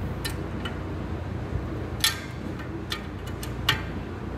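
Metal-on-metal clinks of a wrench against the adjusting bolt and jam nut of a John Deere 450B steering clutch pressure plate: a handful of sharp clicks, the loudest about two seconds in with a short ring, over a steady low hum.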